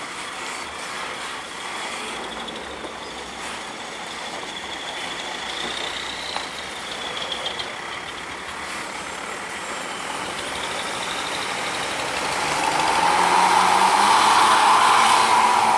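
Road traffic of large buses running past, one passing close and loud about thirteen seconds in. A faint high wavering tone sounds on and off in the middle.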